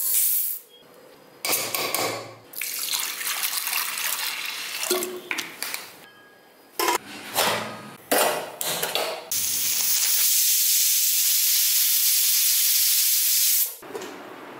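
Water pouring and splashing over chana dal in a steel mesh strainer as it is rinsed, with a few metal knocks and clatters. Then a loud, steady hiss starts about nine seconds in and cuts off sharply after about four seconds.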